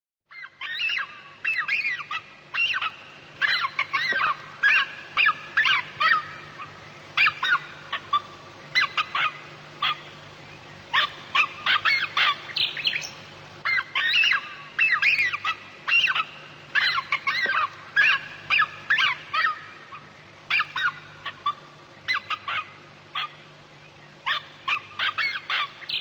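Birds calling: quick runs of short, sharp calls, several a second, broken by brief pauses, over a faint steady low hum.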